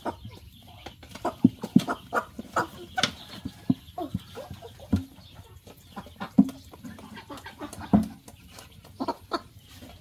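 Chickens clucking in short, separate calls, with scattered sharp clicks and taps.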